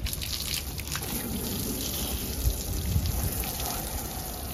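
Water from a small garden hose spraying and splashing steadily on a car's rear bodywork, rinsing off shampoo.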